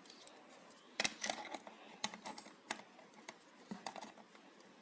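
Irregular light clicks and taps of the mini PC's case and bottom cover plate being handled and fitted, a few sharp knocks spaced a fraction of a second to a second apart.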